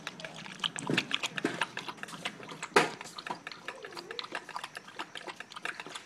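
Puppy lapping water from a plastic bowl: a quick, continuous run of wet laps, with one sharper, louder knock a little under three seconds in.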